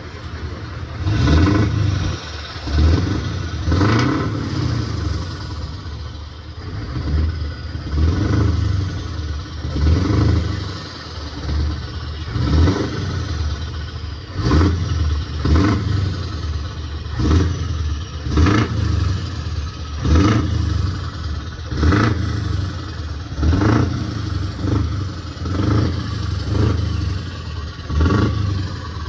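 Truck's diesel engine being revved over and over, with about seventeen short blips of the throttle one to two seconds apart, each falling back toward idle between revs.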